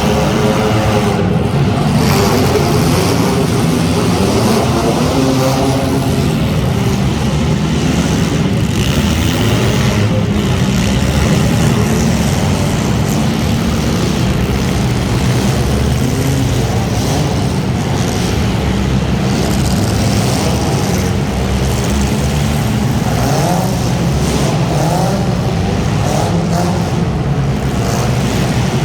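Several front-wheel-drive hobo-class race car engines running hard together, their pitches rising and falling as the cars accelerate and lift.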